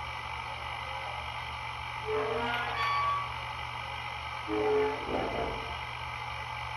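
Sound effects of an HO scale model steam locomotive standing at the coaling station: a steady hiss over a low hum, with short pitched sounds about two seconds in and again just before five seconds.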